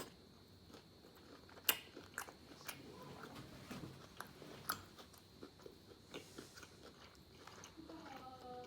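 Close-up crunching bites and chewing of raw cucumber slices: a handful of sharp crunches, the loudest just under two seconds in, over softer wet chewing.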